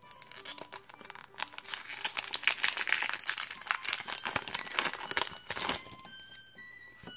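Foil wrapper of a Pokémon trading-card booster pack crinkling and tearing as it is ripped open, a dense crackle that stops nearly a second before the end, leaving faint background music.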